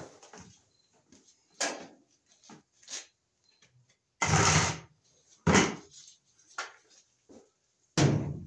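Plastic-sheathed electrical cable being pushed and pulled along basement joists and ductwork: a series of short scraping and rubbing sounds, about six of them, the longest and loudest about halfway through.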